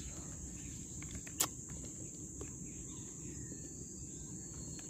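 Steady high-pitched drone of insects, over a low background rumble, with a single sharp click about a second and a half in.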